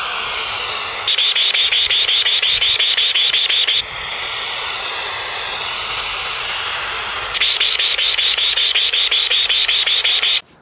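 Homemade LNB metal detector's radio-board speaker giving a steady static hiss, broken twice by a loud, rapid pulsing high beep about three seconds long each time: the detector's alert over metal buried in the disturbed soil.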